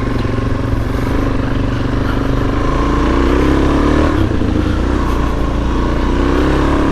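Suzuki DRZ400S single-cylinder four-stroke engine pulling under load on dirt single track. Its revs rise and fall as the rider works the throttle.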